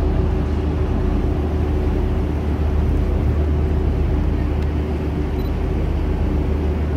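Tour boat's engine running steadily, heard on board: a constant low drone with a steady hum.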